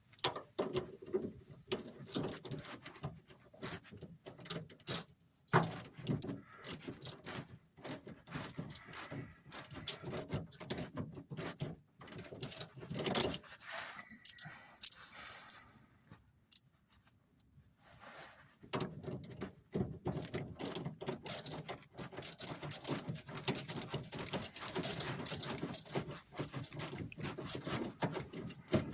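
Socket wrench ratchet clicking in rapid runs as a nut is tightened down on a VW bus steering drag link, pausing briefly about two-thirds of the way through.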